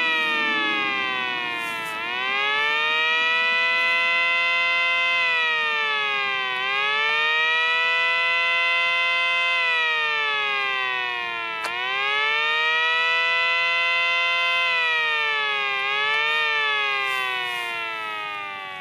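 Miniature ACA Banshee siren at full pitch. Its pitch sags and climbs back up about four times, and near the end it winds down in one long fall.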